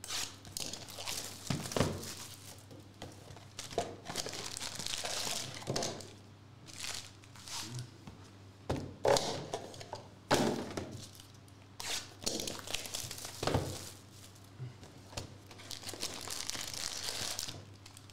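Foil-wrapped Contenders basketball card packs crinkling as they are pulled out of a cardboard hobby box and stacked, with a few irregular thunks of packs and the box being set down on the table.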